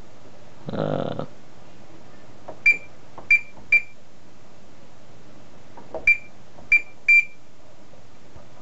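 Gent Xenex fire alarm panel's keypad beeping as its keys are pressed: six short high beeps in two quick groups of three.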